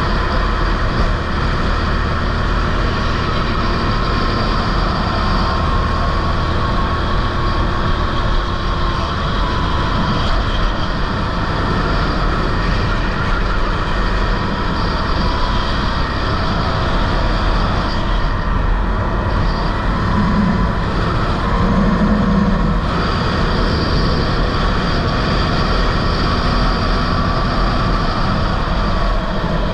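Sodi rental go-kart engine running at racing speed under a camera mounted on the kart, with steady wind and track noise; the sound shifts for a few seconds about two-thirds of the way through.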